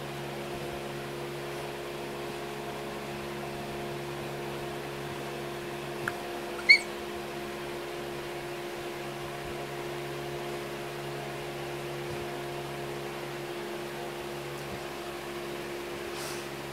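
Steady mechanical hum of several fixed low tones. About seven seconds in comes one short, high squeak, just after a faint click.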